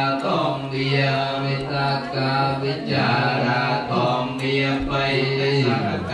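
Buddhist chanting: voices intoning on a steady low pitch, held for long stretches with brief breaks for breath.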